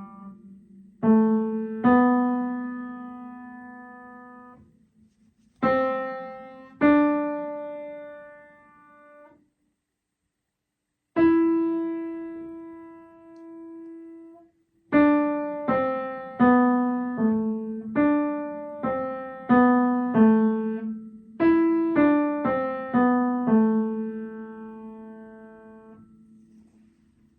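Piano music: slow single notes, each struck and left to ring and fade, with a full silence for about a second and a half in the middle, then a quicker run of notes that dies away near the end.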